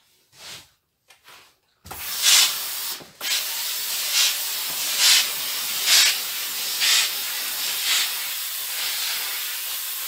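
Steam iron hissing as it pushes out steam, starting about two seconds in, breaking off briefly about a second later, then hissing steadily with a louder surge about once a second.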